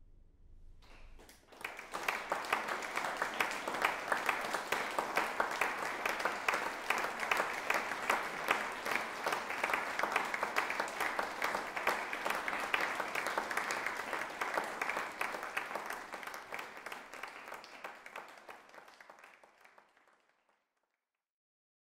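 Concert audience applauding: many hands clapping, starting about a second and a half in and dying away over the last few seconds.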